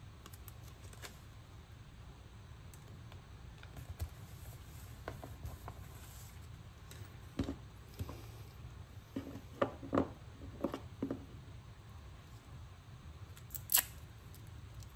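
Rolls of washi tape being handled and stacked: scattered light clicks and taps, a quicker run of them from about seven to eleven seconds in, and a sharp click near the end, over a low steady hum.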